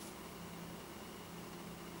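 Quiet room tone: a steady faint hiss with a low steady hum underneath.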